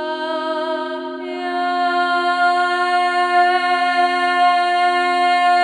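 Sustained vocal toning in a sound-healing meditation, held over a steady two-note drone. The voice steps up in pitch about a second in and then holds one long note.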